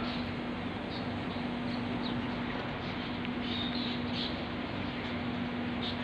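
A handful of short, high bird chirps, spaced out, over a steady hiss of background noise and a constant low hum.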